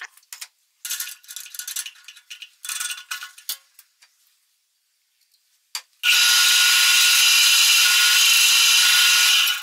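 Scattered clicks and clattering of small parts being handled, then a drill press starts about six seconds in and runs steadily with a whine for about three seconds while its bit drills a small hole in a part clamped in the vise, and stops suddenly.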